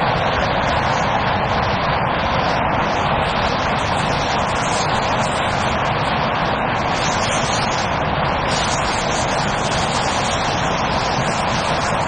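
Picanol OptiMax double flexible rapier loom running at weaving speed: a loud, steady, dense mechanical clatter that does not let up.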